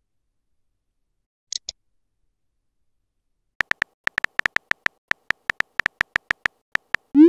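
Simulated phone-keyboard typing clicks from a texting-story app: a quick run of short, sharp taps, about seven a second, as a message is typed, ending in a short rising whoosh as it is sent. A brief double high blip comes about a second and a half in.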